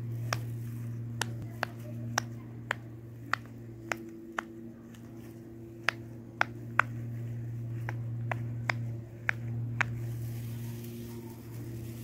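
Silicone pop-it fidget toy bubbles popping one at a time under a fingertip: about fifteen sharp pops at uneven intervals, roughly one or two a second, with a gap of about a second and a half in the middle. A steady low hum runs underneath.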